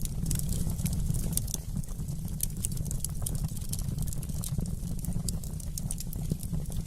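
Wood fire in a fireplace crackling, with frequent sharp pops and snaps over a steady low rumble of the burning.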